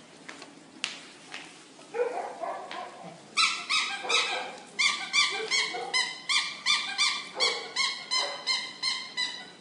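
A squeaky dog toy squeezed over and over: a run of short, high squeaks, about three a second, starting a few seconds in and lasting some six seconds.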